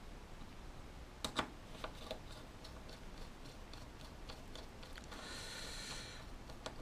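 Faint small clicks and taps of a small screwdriver on a fixing screw and an aluminium case, with a sharper double click just over a second in and a brief soft scrape about five seconds in.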